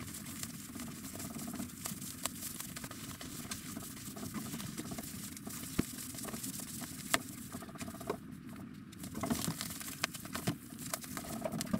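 Nylon fabric rustling and crinkling as a sleeping bag is stuffed into a compression sack, with scattered small clicks and a couple of sharper ticks.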